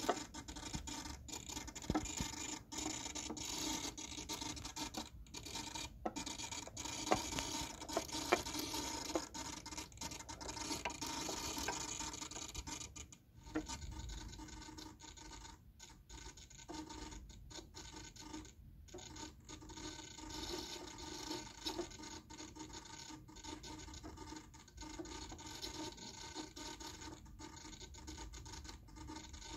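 A small ball rolling and rattling across the wooden board of a BRIO labyrinth game, with many sharp clicks as it knocks against the wooden rails while the board is tilted. A faint steady hum sits underneath.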